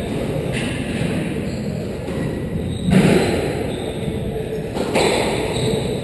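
Squash rally: the ball is struck with rackets and hits the court walls, giving three sharp thuds roughly two seconds apart that ring on in the reverberant court.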